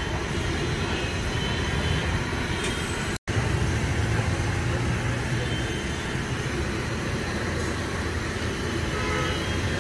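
Steady low roar of road traffic at a roadside food stall. It cuts out for an instant about three seconds in.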